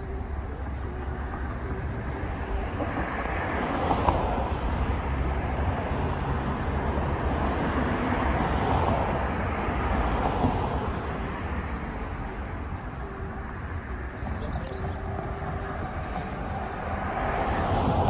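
Outdoor road-traffic noise: a steady low rumble with slow swells about four, nine and seventeen seconds in.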